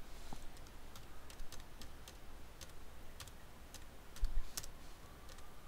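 Computer keyboard keys pressed singly, light scattered clicks at an uneven pace, with one dull low thump about four seconds in.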